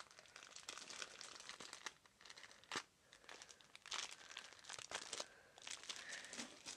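Faint crinkling and rustling of packaging being handled, in short irregular bursts.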